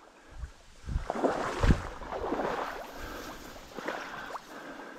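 Dry reed stalks rustling and scraping as someone pushes through a reed bed, with a few low thuds in the first two seconds.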